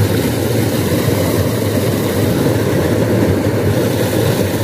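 Steady low rush of water pouring over a small drop in a narrow stream.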